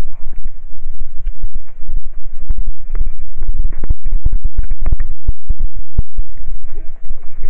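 Loud, distorted rumbling and scratching from wind and handling on a hand-held camera's microphone as it is carried at a walk, cutting out again and again in brief gaps.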